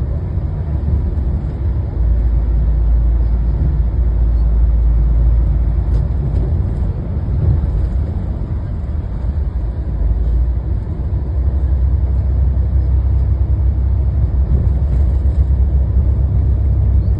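Steady, loud low engine rumble of a vehicle, heard from on board, growing a little heavier about two seconds in.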